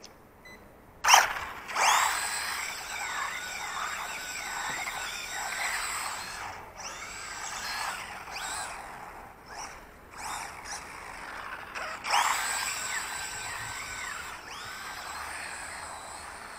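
Wltoys A959 4WD electric RC buggy driving fast past on asphalt: its electric motor gives a high whine that rises and falls as the throttle changes. It comes in suddenly and loudly about a second in, fades, and passes loudly again about twelve seconds in.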